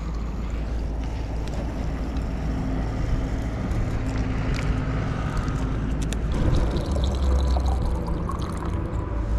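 Water running from a tap into a container, over a steady low rumble.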